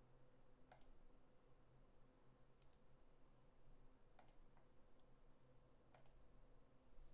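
Faint computer mouse clicks, four times about two seconds apart, several as quick double-clicks, over a faint steady hum.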